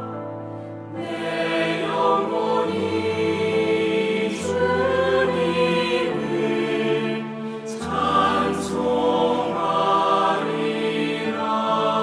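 Slow devotional hymn: a woman singing long held notes over sustained low accompaniment, in the manner of a Catholic song prayer.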